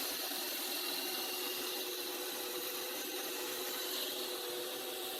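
Mercedes S320's V6 engine running at a steady idle under the open bonnet, with a steady whine and hiss over it; the mechanic suspects a noisy alternator bearing.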